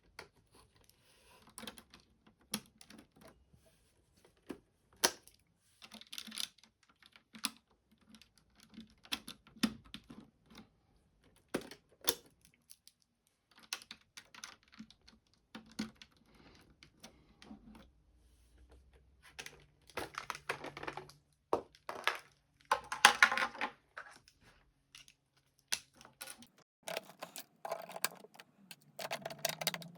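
Plastic Lego bricks being handled and clicked together: a run of small sharp clicks and snaps, with bursts of pieces rattling and rustling about two-thirds of the way in and again near the end.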